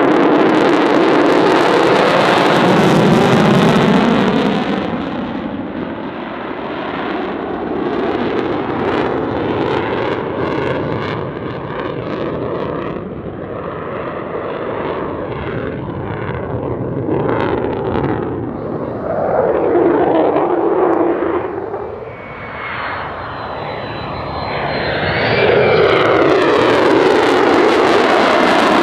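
Jet noise from an F-35A's single afterburning turbofan as the fighter maneuvers overhead. The roar swells and fades as the aircraft turns: loud at the start, easing off through the middle, then building loud again near the end.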